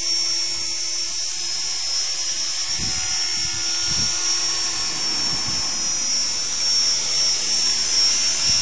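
Esky Honey Bee King 2 electric radio-controlled helicopter hovering low, its motor giving a steady high whine over the rotor noise.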